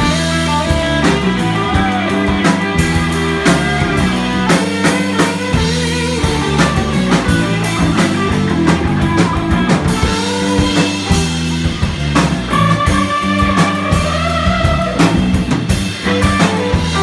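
Live band playing an instrumental passage: electric guitar lines over drum kit and bass.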